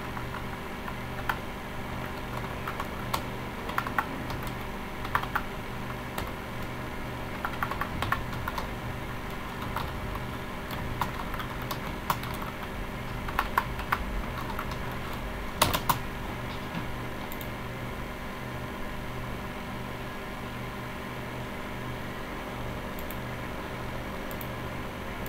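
Typing on a computer keyboard in irregular bursts of keystrokes, thinning out about two-thirds of the way through, over a steady low hum.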